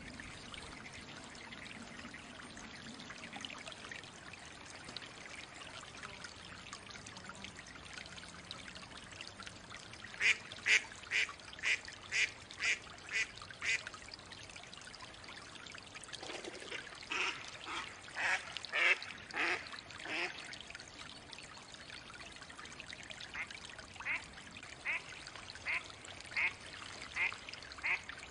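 Mallard quacking over a steady trickle of water: a quick run of about nine quacks that fades off about ten seconds in, a louder, fuller bout of quacks around the middle, and a slower, even series of quacks near the end.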